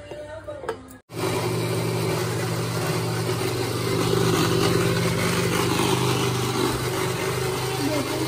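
Philips mixer grinder's motor running steadily at full speed, grinding chopped onions, tomatoes and green chillies into a masala paste. It cuts in abruptly about a second in.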